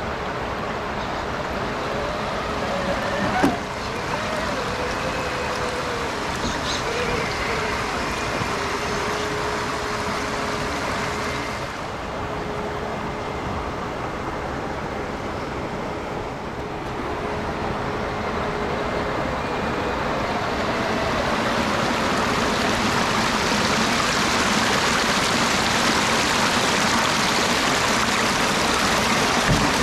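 Creek water rushing over rock ledges, growing louder about two-thirds of the way through, with a thin steady whine from the Axial SCX6 RC crawler's electric motor through the middle and a single sharp knock a few seconds in.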